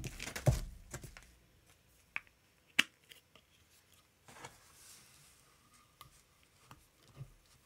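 Clear plastic doll packaging crinkling for about the first second, then scattered light clicks and taps as the doll and its plastic stand are handled, with a short rustle of plastic a little past halfway.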